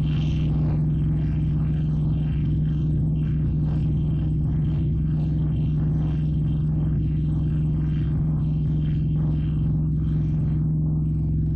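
Kubota tractor's diesel engine running at a steady speed, a constant low drone with no change in pitch.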